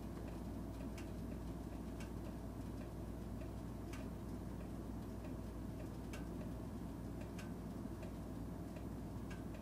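Dainichi kerosene fan heater running: a steady low hum of the fan and burner, with light ticks at uneven intervals of roughly one to two seconds.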